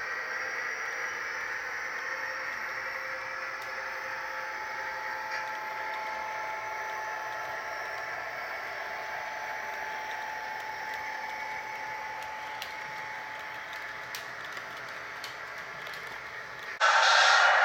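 HO scale model passenger coaches rolling along the track: a steady whirr of wheels on rails with a faint motor whine, easing off slightly, with a few light clicks near the end. About a second before the end a much louder sound cuts in abruptly.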